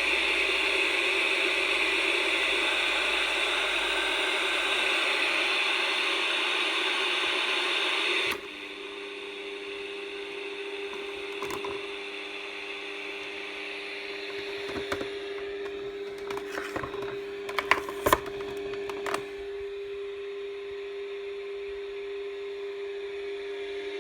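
Loud static hiss from a portable black-and-white CRT TV/radio's speaker, untuned, cutting off suddenly about eight seconds in. After that the set gives a quieter steady hum, with a run of sharp clicks from its controls in the middle.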